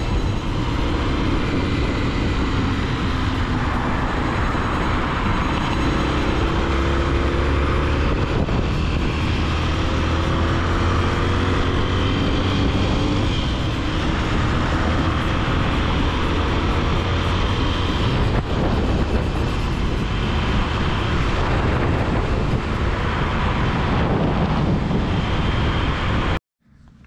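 Honda Tornado 250 motorcycle under way at road speed: its single-cylinder engine running under a steady rush of wind and road noise, with the engine note rising several times partway through. The sound cuts off suddenly near the end.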